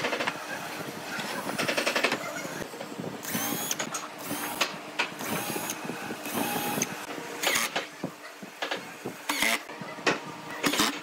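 Cordless drill and driver run in a series of short bursts, drilling holes through a pine board and driving screws into it, with the motor pitch sliding as the trigger is feathered.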